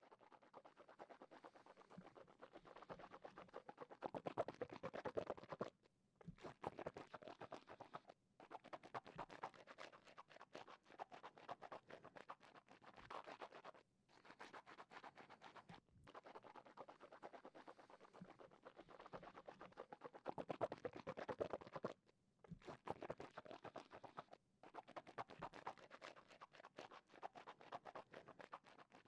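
Wet mouth sounds with water in the mouth, close to a binaural microphone: dense, fast wet crackling and clicking in runs of a few seconds with short pauses between.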